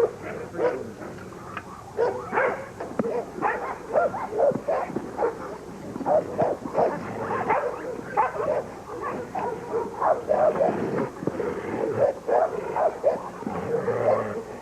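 American bulldog barking over and over in short, quick barks, a few a second, with hardly a pause.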